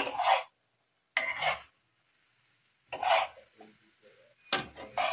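Spatula scraping and turning beef and vegetables in a frying pan, in about four short strokes roughly a second apart.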